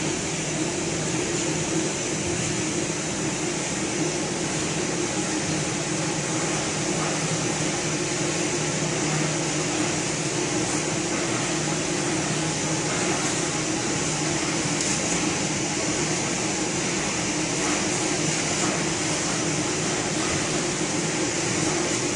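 EPE foam laminating machine running, a steady hum under an even hiss.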